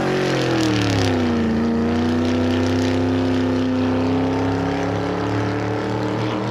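A car engine sound effect under an intro logo. The engine note drops in pitch over the first second and a half, then holds steady, easing off slightly near the end.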